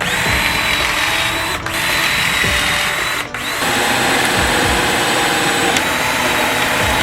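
Handheld power tool motor running at a steady high whine, with two brief pauses in the first half.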